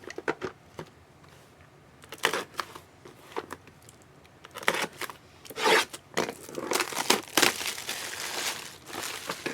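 Packaging of a trading-card box being crinkled and torn open by hand, in short scattered rustles that get busier in the last few seconds.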